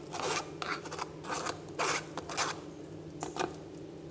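Metal spoon scraping fruit pulp across a wire-mesh strainer in several short strokes, followed by two light clicks a little after three seconds.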